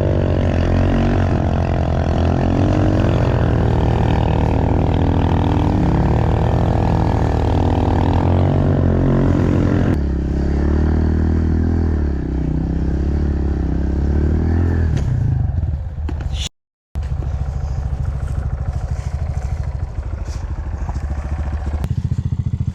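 Small single-cylinder pit bike engine running under load, its pitch rising and falling with the throttle; about ten seconds in it settles to a lower, steadier note. The sound cuts out completely for a moment about two-thirds of the way through.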